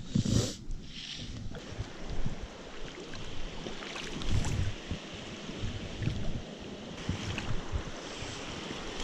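Wind buffeting the microphone in irregular low thumps over a steady hiss of shallow creek water and rain, with a short loud rustle just after the start.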